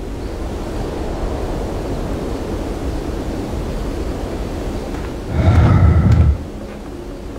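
Steady rushing wind-and-surf noise. About five seconds in comes a loud, deep burst of sound lasting about a second.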